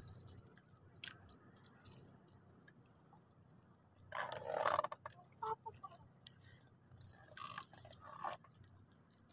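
Faint handling noises from a fishing rod and reel: scattered small clicks and a few short rustles, the longest about four seconds in.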